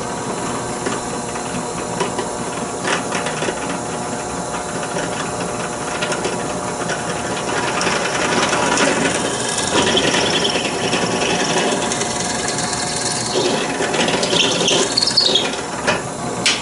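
Drill press running, its bit boring through a laminated mahogany-and-cedar tiller, with a steady motor hum under the cutting. The cutting grows louder from about eight seconds in as the bit is fed deeper.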